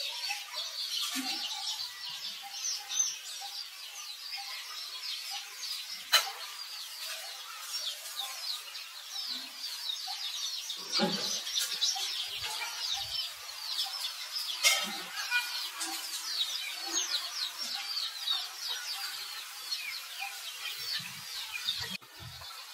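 Many small birds chirping and twittering in a dense, continuous chorus of quick high notes, with a few sharp clicks.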